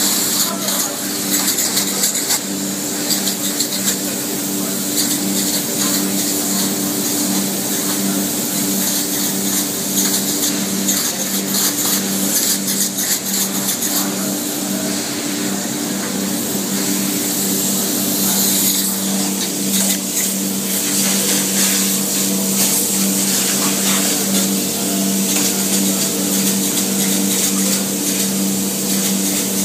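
Handheld spray foam gun spraying expanding foam insulation: a steady loud hiss over the constant hum of the foam rig's machinery.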